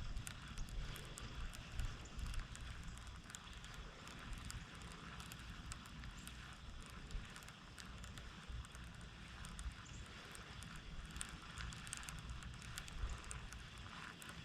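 Wind buffeting the microphone in an uneven low rumble, with scattered faint clicks and ticks over it.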